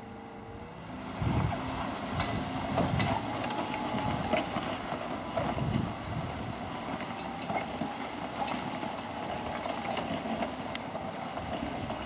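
John Deere 6155R tractor running under load as it pulls a five-furrow Kuhn plough, with a steady whine and the plough's frame and bodies clanking and ticking as the soil is cut and turned. It grows louder about a second in.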